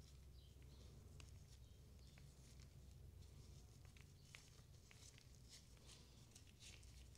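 Near silence: a low steady hum with faint, scattered light clicks of small parts being handled.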